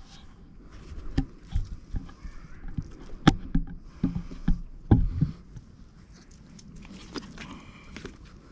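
Shih Tzu dogs stirring and making short low noises among scattered knocks and thumps; the loudest knocks come about three and five seconds in.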